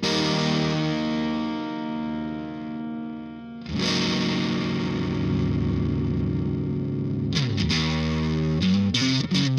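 Electric guitar played through an MXR Fet Driver overdrive pedal, switched on and distorting: a chord rings out and fades, a second chord is struck just under four seconds in and held, then quicker notes are picked from about seven seconds on. The pedal, its dead power supply section repaired, is passing a driven tone again.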